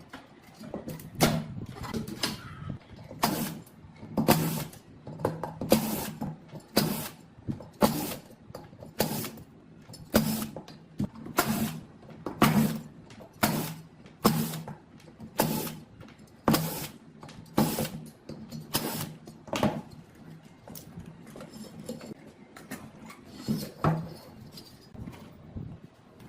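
Repeated sharp knocks and clicks, roughly one a second, becoming sparser in the last few seconds.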